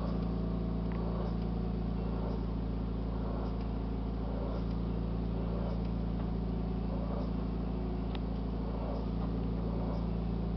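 A steady low mechanical hum at an even level, with faint soft sounds recurring about once a second above it.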